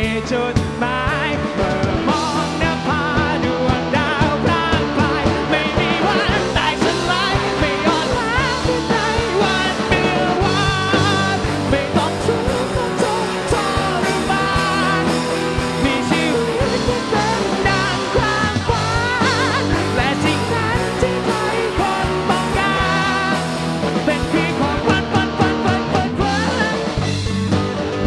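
Rock band playing an instrumental passage, with drums keeping a steady beat under a wavering lead melody.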